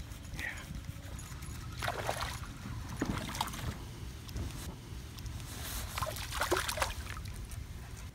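A hooked bluegill splashing at the water's surface as it is reeled in to the boat, in several short bursts about two, three and six to seven seconds in.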